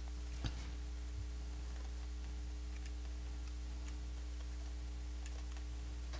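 Steady low electrical hum with a few faint, irregular clicks and taps from paper petals being handled and fitted together.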